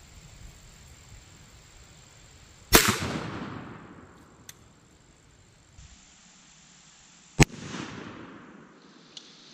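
.410 bore shotgun firing #4 buckshot, two shots about four and a half seconds apart, each a sharp blast followed by an echo rolling away over a second or so.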